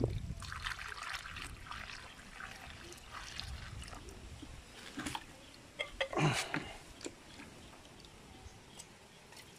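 Water splashing and trickling as it is poured from a plastic basin into the tank of a manual knapsack sprayer, with a few small knocks; loudest about six seconds in.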